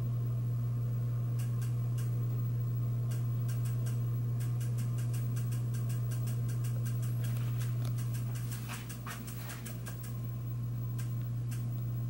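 Regency ceiling fan running with a steady low motor hum and scattered light clicks, which come thickest in the middle. The hum dips slightly about two-thirds of the way through, then comes back.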